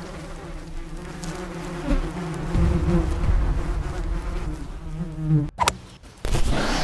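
Honeybees buzzing around their hive, a steady drone with wavering pitch. It cuts off suddenly about five and a half seconds in, and a rush of noise rises near the end.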